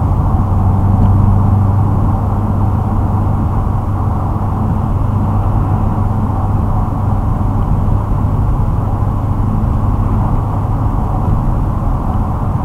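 2006 Ford Mustang GT's 4.6-litre V8, heard inside the cabin through an off-road X-pipe and Magnaflow axle-back mufflers, cruising at a steady speed with an even low exhaust drone and no revving.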